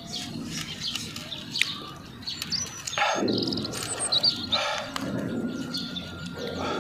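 Small birds chirping in the background, with a few brief rustling, tearing sounds as a whole grilled chicken is pulled apart by hand.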